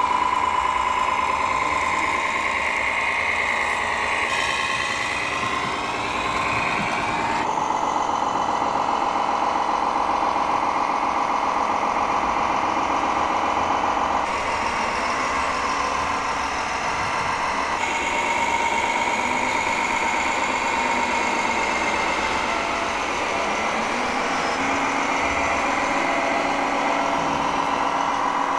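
Radio-controlled MAN model truck driving under load with a low-loader trailer: a steady motor-and-gear whine that drifts a little in pitch, together with an engine-like running sound.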